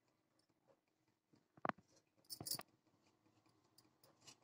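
Small knife cutting through a slice of white bread: a short crunchy cut about one and a half seconds in and a quick run of a few more about a second later, with near silence between.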